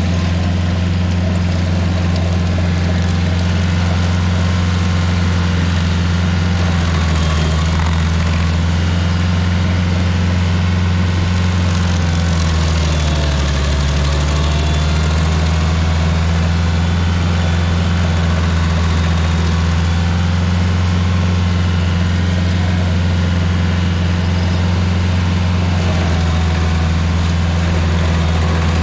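Rayco RG50 stump grinder's engine running steadily with a loud low hum, its pitch shifting slightly a few times as it works.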